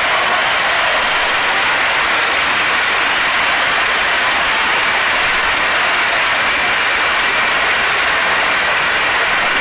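Large convention crowd applauding and cheering, loud and steady.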